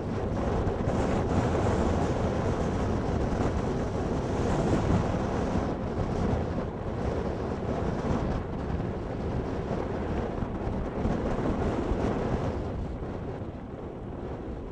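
Blizzard wind blowing hard across the microphone: a steady, rushing, buffeting roar that eases a little near the end.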